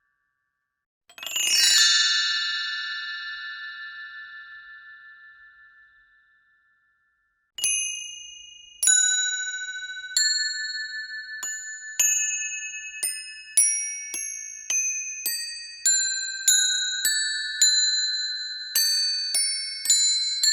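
Bright, bell-like metallic chimes in the manner of a glockenspiel. First comes a shimmering shower of many high ringing tones that fades out over about five seconds. After a short pause, single struck notes at different pitches follow one by one, coming faster and faster, each ringing on as the next sounds.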